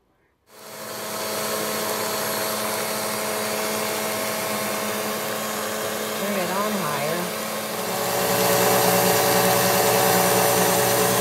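Electric stand mixer running, its two beaters whipping ice cream base in a glass bowl. The motor starts about half a second in and gets louder about eight seconds in.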